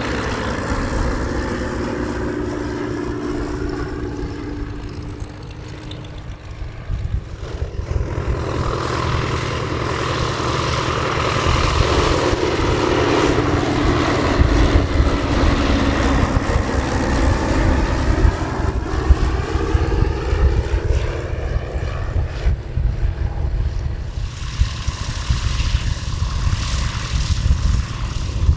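Light propeller plane's piston engine running as it flies by. Its pitch slides down as it passes and the sound fades, then it grows louder again from about eight seconds in.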